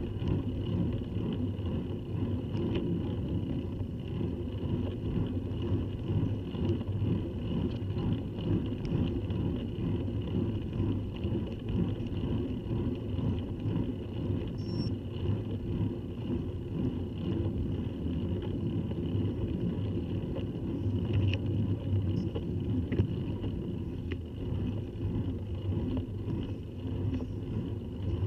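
Steady low rumble of bicycle tyres on tarmac and wind on a bike-mounted camera during a road ride, with a few faint clicks.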